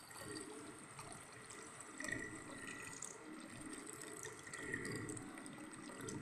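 Faint, steady trickle of liquid running into a container from a home distillation setup: the still's outlet stream and its cooling-water hoses.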